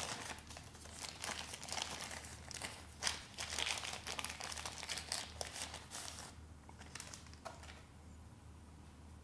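Thin translucent protective wrapping crinkling and rustling as a compact camera is unwrapped by hand. The crinkling stops about six seconds in, leaving a few light handling clicks.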